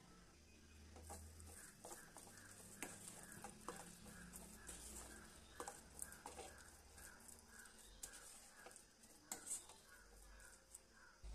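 A spoon scraping and clicking against a steel pan while thick semolina kesari is stirred, faint and irregular. A faint chirp repeats about three times a second behind it.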